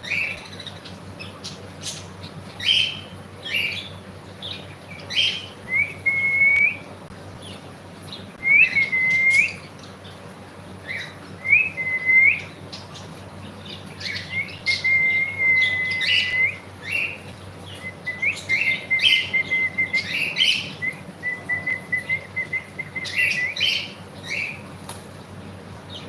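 Pet cockatiel chirping and whistling: a string of short rising chirps, then longer runs of quick chattering calls partway through and again near the end.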